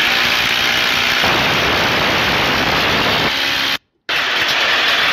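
Loud, steady engine-like noise: a rushing hiss with a faint hum under it. It drops out briefly a little before four seconds in, then resumes.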